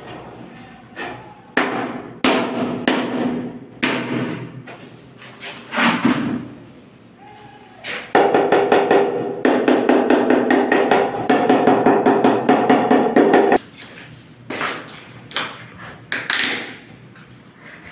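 Mallet tapping a large wall tile to bed it into the tile adhesive: a few scattered knocks and scrapes, then about eight seconds in a fast, even run of knocks with a ringing note that lasts about five seconds and stops abruptly.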